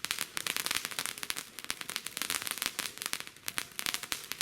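Fireworks crackling: a dense, irregular run of rapid small pops and snaps.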